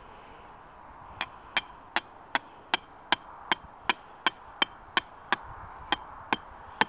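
Metal-on-metal hammer blows driving a foothold trap's metal stake deep into sandy ground. About fifteen steady strikes at roughly two and a half a second begin about a second in, each with a short metallic ring, with one brief pause near the end.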